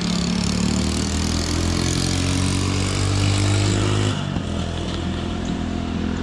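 A motor vehicle's engine running steadily, then easing off about four seconds in.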